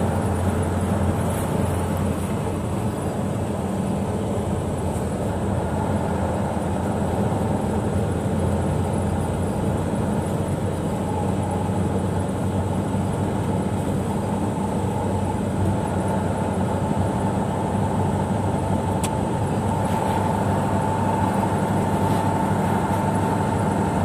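Car interior noise while driving on a snow-covered road: the engine hums steadily under even tyre and road noise. A faint steady whine comes in during the last few seconds.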